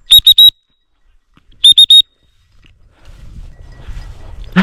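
A dog whistle blown in two sets of three short, sharp blasts about a second and a half apart, each blast a steady high pitch.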